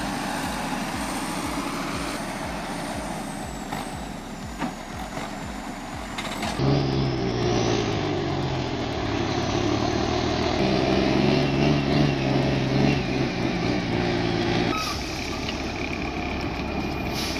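Heavy truck engines running in the clips. The first few seconds are noisy, with a faint high whine. From about six and a half seconds a steady engine note comes in, and the sound changes again near the end.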